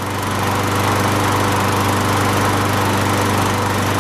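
Briggs and Stratton 6.5 hp single-cylinder four-stroke lawn mower engine running steadily, growing louder through the first second and then holding an even pitch. It is being run to warm the oil before an oil change.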